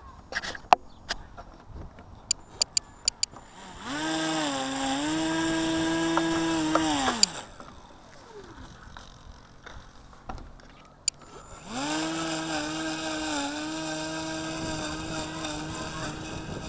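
Electric motor and propeller of an RC foam model of a PZL-104 Wilga run up twice, each a steady buzzing whine lasting about three to five seconds that dips briefly in pitch early on and winds down when cut. A few sharp clicks come before the first run.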